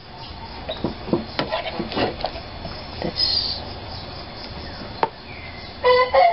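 Scattered clicks and light knocks of cookware and utensils being handled at a gas stove. A rooster starts crowing near the end.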